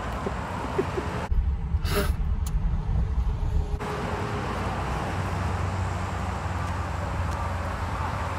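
Steady low rumble and hiss of a small hatchback towing a person on inline skates over concrete. About a second in, heavy wind buffets the microphone for a couple of seconds.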